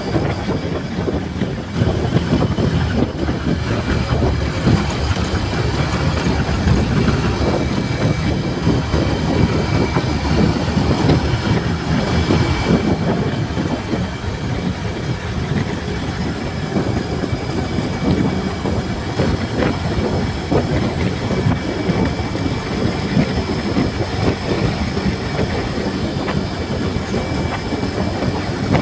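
Wind buffeting the microphone and road rumble from a motorcycle riding at speed, a steady, rough low roar with a faint engine note underneath.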